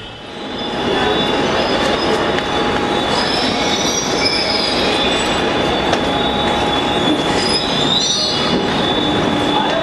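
Suburban electric train running: a dense, steady rumble of steel wheels on the track, with high wheel squeals coming in around three to four seconds in and again around eight seconds in.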